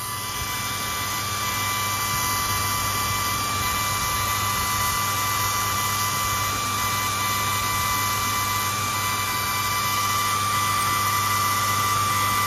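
Sculpfun S9 laser engraver with a 33-watt module and air assist running an engraving job at 30 mm/s: a steady hiss with a whine from the module's cooling fan and air assist, and the stepper motors driving the head.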